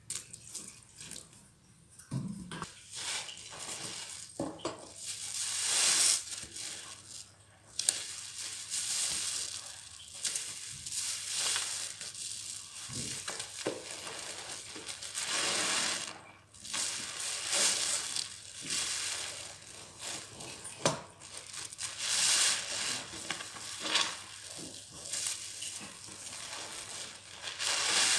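Wet sponges squeezed and kneaded by hand in soapy water: repeated squelching with crackling, hissing suds, swelling every second or two from about two seconds in.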